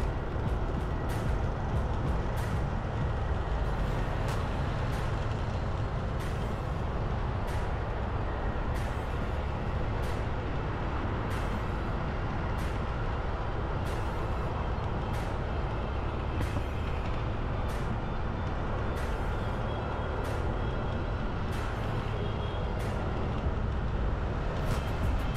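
Steady low rumble of vehicle engine and road traffic noise while driving.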